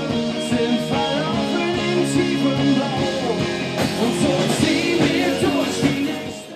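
Rock music with a singer and guitars, fading down near the end.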